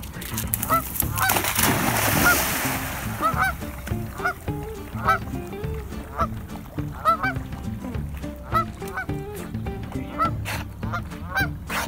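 Geese honking over and over, short calls about once or twice a second throughout. About two seconds in, a loud splash as a dog jumps into the pond.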